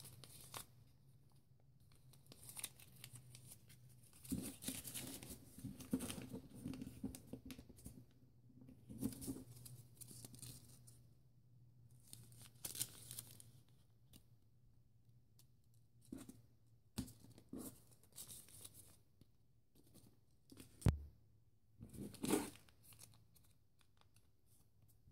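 White paper rustling and crinkling in irregular bursts as hands fold, crease and fit together the folded pieces of an origami ninja star. A single sharp tap stands out about three-quarters of the way through.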